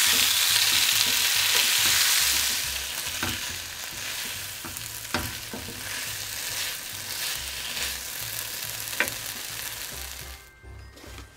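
Food frying in oil in a pan: a steady sizzle, loudest for the first couple of seconds and then lower, with a few sharp clacks of a utensil as it is stirred, dying down near the end.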